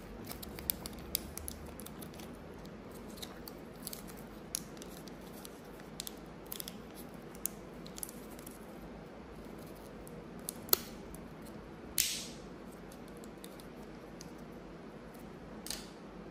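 Foil and plastic candy wrapping crinkling and crackling as it is peeled off by hand, in scattered small clicks. There is a sharp click near eleven seconds and a longer, louder crackle just after it.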